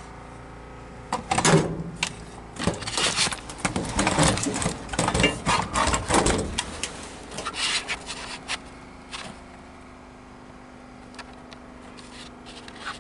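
Irregular scraping and rubbing noises, loud and uneven for several seconds, then dropping away about two-thirds of the way through to a faint steady low hum.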